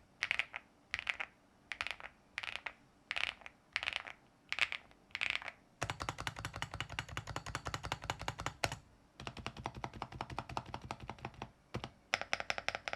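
Mechanical keyboard being typed on: about eight single, separate keystrokes in the first five seconds, then fast continuous typing in two runs with a short break a little past halfway.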